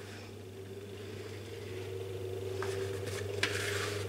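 Steady low hum of an electric oven's fan, just switched on to preheat. Crumble topping is scattered by hand onto sliced apples in a glass baking dish, rustling briefly twice in the second half.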